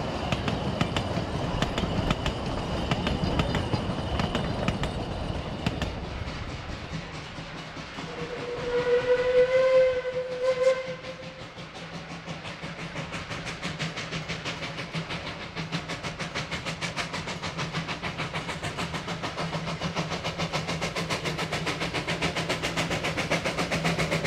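Puffing Billy narrow-gauge steam train. First the carriages rumble and clatter past on the rails. About eight seconds in, a steam whistle gives a long blast followed by a short one. Then a steam locomotive's exhaust beats come in a regular rhythm, growing steadily louder as it approaches.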